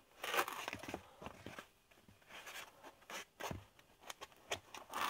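Utility knife blade slicing into a foam pool noodle: a run of short, uneven crunching scrapes as each slit is cut about halfway through the foam.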